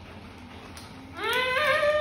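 A woman's drawn-out "mmm" of enjoyment while tasting a snack. It starts about a second in, slides up in pitch, then is held.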